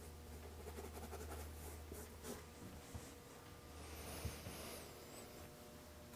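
Faint scratchy strokes of a paintbrush working water-soluble oil paint onto canvas, with a few soft taps, the sharpest about four seconds in, over a steady low hum.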